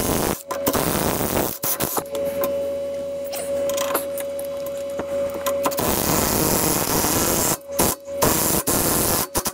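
Cordless power wrench whirring in several runs with short stops, spinning a nut off and back onto a suspension arm bolt.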